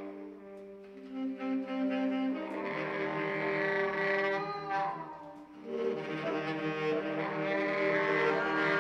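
Two baritone saxophones improvising freely in long held, overlapping notes: one steady low note sounds under higher notes that shift and waver in pitch. The playing grows louder about two and a half seconds in, drops briefly just past five seconds, then swells again.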